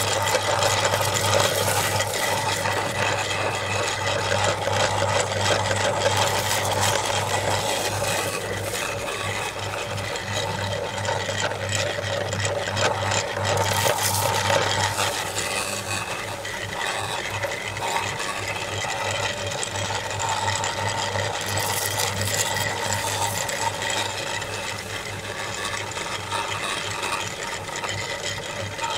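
Metal meat grinder running with a steady machine hum, its auger crunching and rattling as it crushes colourful wafer cookies fed into the hopper.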